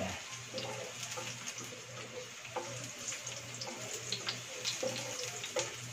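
Chopped garlic sizzling in hot oil in a nonstick frying pan, with a spatula scraping and clicking against the pan as it is stirred.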